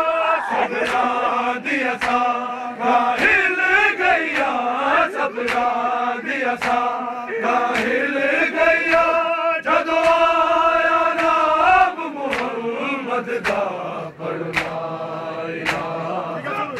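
Nauha, a Punjabi mourning lament, chanted by a group of men without instruments in long held melodic lines. Sharp slaps recur at a steady beat, about every two-thirds of a second: the mourners' chest-beating (matam) keeping time with the lament.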